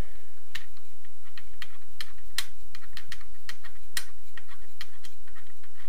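Light, sharp metallic clicks, irregular at about three a second, as a bolt is spun out of a Honda VFR800 engine's crankcase.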